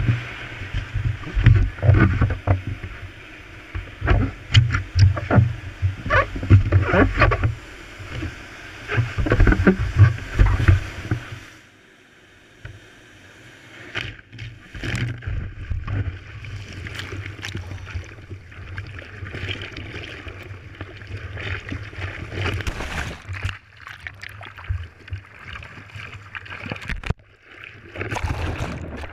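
Water splashing and sloshing against a surfboard as it is paddled through breaking surf, heard from a camera on the board's nose. The splashing is loud and choppy for about the first twelve seconds, then drops to lighter, scattered splashes.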